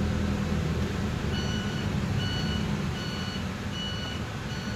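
Mitsubishi Fuso Rosa minibus's electronic warning beeper sounding a steady series of short high beeps, about one every 0.8 s, five in all, starting a little over a second in. Underneath runs the low hum of the bus engine, which drops off after a second or so.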